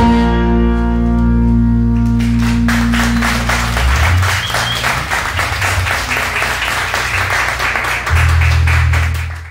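The band's final chord rings out on acoustic guitars and bass guitar and dies away. About three seconds in, applause takes over and fades out near the end.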